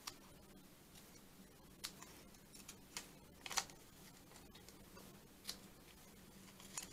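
Small scissors snipping around a magazine cut-out: a handful of short, separate snips, the loudest small cluster a little past the middle.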